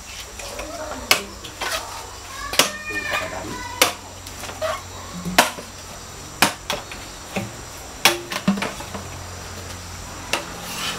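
A series of sharp knocks, about seven at irregular intervals of one to two seconds, with faint voices between them.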